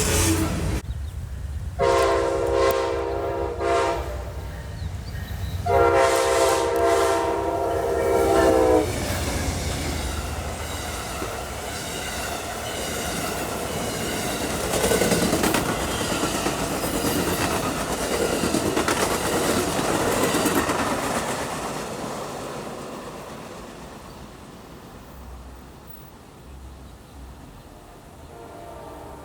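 Locomotive air horn sounding two long blasts, the second longer, followed by the train rolling past with wheel clatter on the rails, which gradually fades away.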